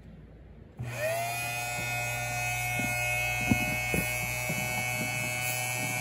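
Small electric fuel pump switched on about a second in: its motor spins up briefly in pitch and then runs at a steady whir, with a few light clicks partway through.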